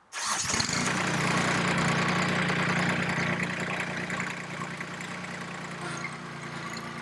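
Kubota B2261 compact tractor's three-cylinder diesel engine starting up and running at a steady idle, a little quieter from about four and a half seconds in.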